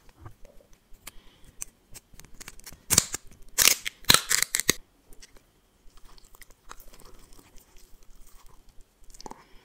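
Thin plastic wrapper crinkling and tearing as it is peeled off a round gummy candy, in a few sharp crackly bursts about three to five seconds in. Faint soft mouth and handling sounds follow as the gummy is bitten.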